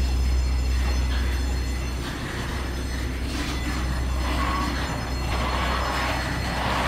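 Passenger boarding bridge (jet bridge) being driven up to an airliner's door: a steady low drone and rumble of the moving bridge, with a few short metallic squeals from about four seconds in.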